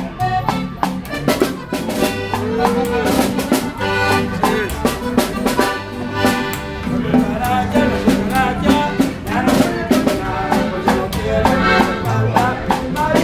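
A live norteño-style band playing: accordion melody over a quick, steady snare-drum beat, with plucked upright bass underneath.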